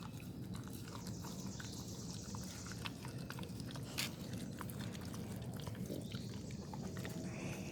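A dog chewing and biting on a piece of raw porterhouse steak, with scattered crunches, the sharpest about four seconds in.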